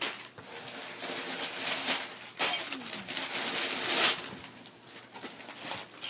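Packing material rustling and crinkling as hands rummage through a cardboard shipping box, with louder rushes near the start, about two seconds in and about four seconds in, then quieter toward the end.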